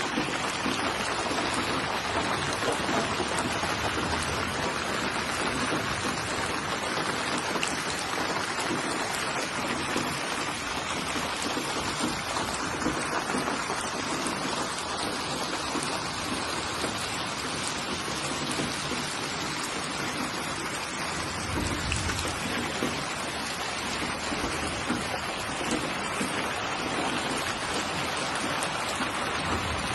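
Steady rain falling, an even hiss of many drops that keeps up without a break.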